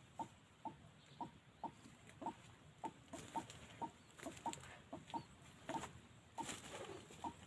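White-breasted waterhen calling: a steady series of short notes, about two a second, with a brief rush of noise near the end.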